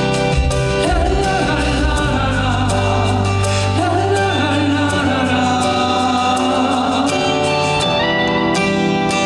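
A live song: a singing voice over sustained instrumental accompaniment, the sung line dropping out about seven seconds in and leaving the instruments.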